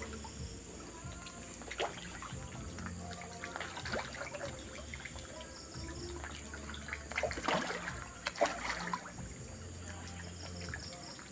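Patin (pangasius catfish) feeding on pellets at the surface of a pond: scattered small splashes and slurps. There is a louder flurry of them about seven to nine seconds in.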